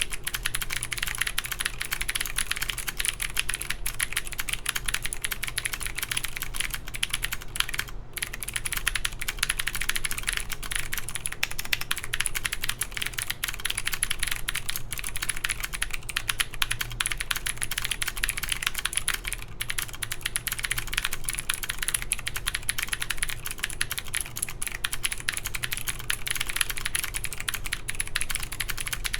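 Continuous fast typing on an OTD 356CL mechanical keyboard with clicky Cherry MX Blue switches, an aluminium plate and Cherry G81-3077 keycaps: a dense stream of sharp clicking keystrokes, broken only by brief pauses about eight and twenty seconds in.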